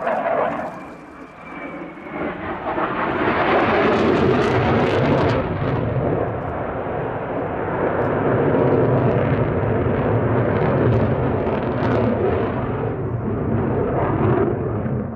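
Sukhoi Su-27 fighter's twin AL-31F turbofan jet engines, a loud, dense rush as the jet manoeuvres overhead. The noise builds a couple of seconds in, holds, and fades near the end.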